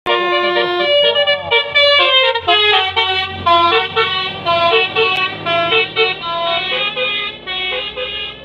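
Multi-note musical vehicle horn, telolet style, playing a quick stepping tune, each note held only a fraction of a second.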